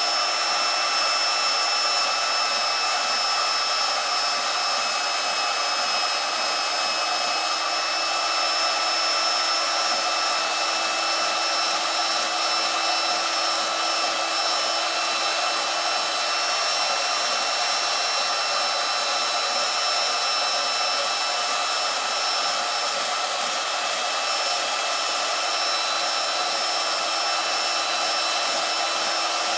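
A small electric motor running steadily: an even, high whir with a few constant tones and no breaks or rhythm.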